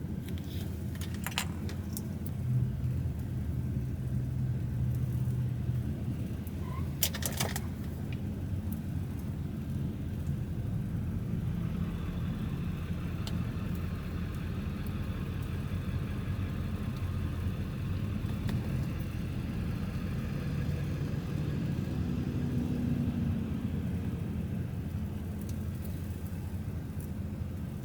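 A vehicle engine idling steadily, a low even hum, with a few brief clicks about a second in and again around seven seconds.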